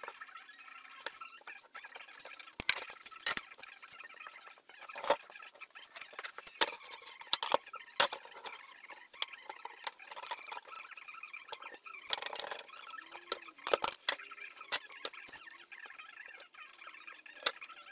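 Hand tools and a wooden board being handled on a wooden workbench: scattered clicks, taps and light knocks, with a brief scrape about twelve seconds in.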